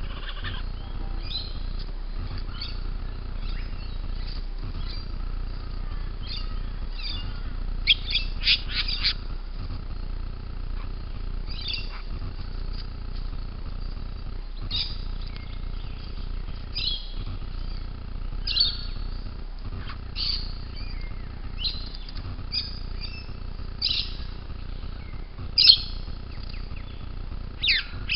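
Birds chirping and calling in short, high notes, coming every second or two and loudest near the end, over a steady low hum.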